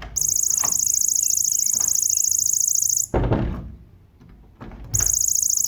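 Electronic buzzer of a homemade IR-sensor door alarm sounding a shrill, high-pitched buzz, set off by a hand held in front of the IR sensor. It cuts out a little past halfway, with a thump just after, and starts again near the end.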